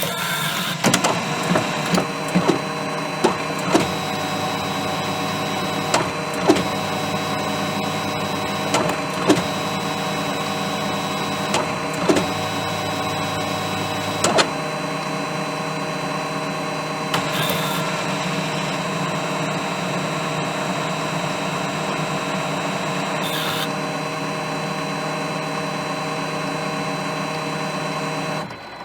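Laser printer starting up: a steady mechanical hum of its motors and fan with several steady tones, broken by a string of sharp clicks and knocks over the first dozen seconds, then running evenly with a couple of further clicks until it stops abruptly near the end.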